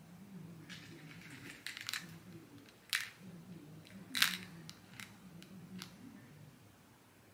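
Handling of a small clear plastic box of camera-lens protectors and a phone in its case: light rustling, then several short sharp plastic clicks, the two loudest about three and four seconds in, followed by a few fainter ticks.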